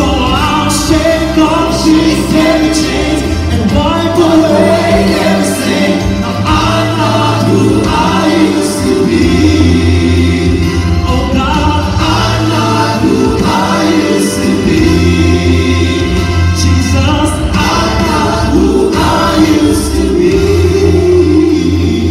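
Mixed gospel choir singing with a male lead vocalist into handheld microphones, over instrumental accompaniment with sustained bass notes.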